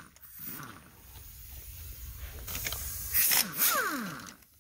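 Impact wrench on the front strut and steering-knuckle bolts of a Honda Civic wagon: a few short trigger bursts between about two and a half and four seconds in, each trailing off in a falling whine as the tool spins down.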